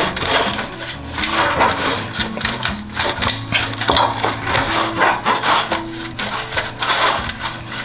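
Silicone pastry brush swept quickly and repeatedly over the oiled bottom and sides of a round metal baking tin, making a run of irregular rubbing and scraping strokes.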